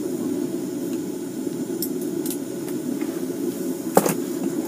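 Steady low rushing noise inside an ice-fishing tent, with a few sharp clicks, the loudest about four seconds in.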